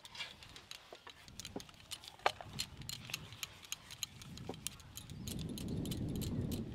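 Scattered light clicks and clinks as hands press dough balls flat and set them down on a steel plate: bangles tapping together and against the steel. A soft low rustling noise rises after about five seconds.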